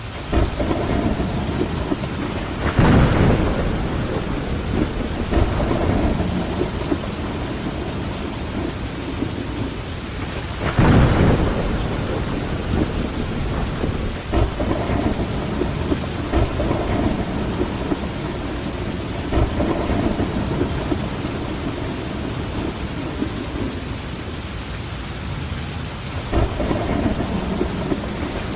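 Steady rain on window glass with rumbles of thunder rolling through: a louder rumble about 3 seconds in, another about 11 seconds in, and a third building near the end.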